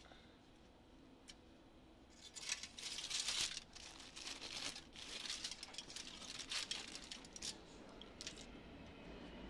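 Deli paper and aluminium foil sandwich wrapping crinkling and rustling as it is pulled open by hand. The crackling starts about two seconds in, is loudest around the middle, and dies down near the end.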